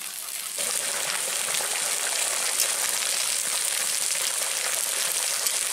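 Potato and taro cooking in water in a pan on the stove, a steady bubbling sizzle that begins abruptly about half a second in.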